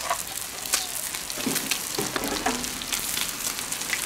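Small river fish frying in hot oil in a wok, sizzling steadily with frequent sharp crackles and spits.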